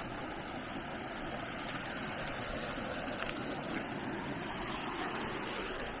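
Mountain valley stream flowing, a steady rush of water.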